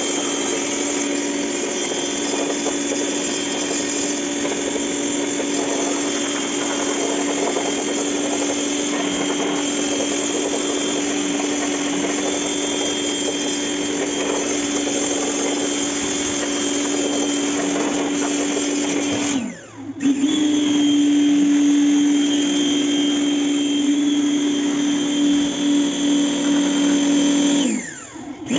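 Pressure washer running: a steady motor hum under the hiss of the water jet spraying on the metal seeder discs. It cuts out briefly about two-thirds of the way in and again at the end, then starts straight back up.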